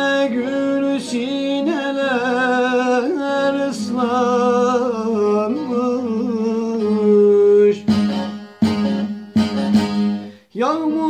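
A man singing a Turkish folk song (türkü) in a long, wavering line, accompanied by a bağlama (long-necked saz) holding a steady low drone. About eight seconds in the voice stops and the saz is struck in a few short strums, and the singing resumes near the end.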